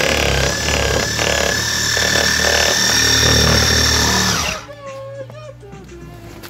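Power windshield cut-out knife running steadily, its blade cutting through the urethane that holds the windshield along the dashboard edge. It stops abruptly about four and a half seconds in.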